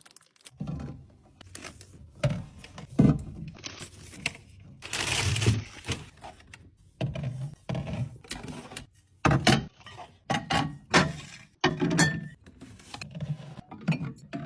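Aluminium soda cans being set down and slid into rows on a fridge shelf: a string of knocks and thunks, with a brief rustle about five seconds in.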